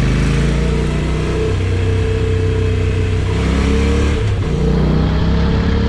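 Honda NC750X's parallel-twin engine running under way, its pitch climbing, dropping off briefly about four seconds in, then climbing again.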